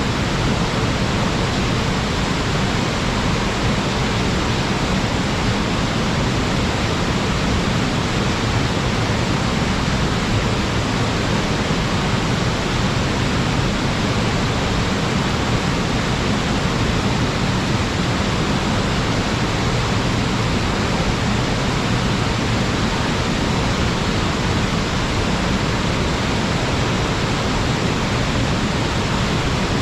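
Waterfall running high after a typhoon: a steady, loud rush of falling and churning water with no breaks.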